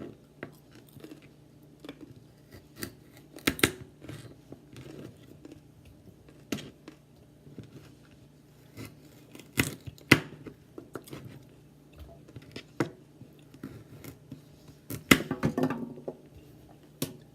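Kitchen knife cutting baby carrots on a cutting board: irregular sharp knocks and crunches every second or so, with a quick flurry of them near the end.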